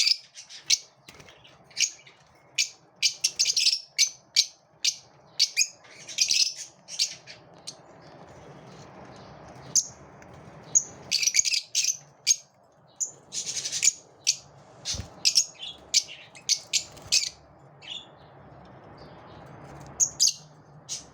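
Lovebirds chirping and squawking: many short, sharp, high-pitched calls in irregular clusters, with brief pauses between.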